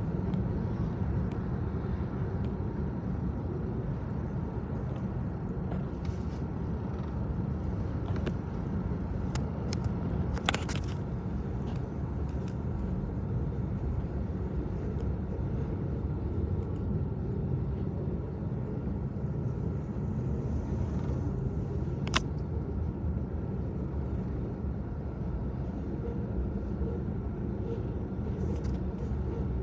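Steady low rumble of road traffic and a long freight train passing in the distance, broken by a couple of sharp clicks.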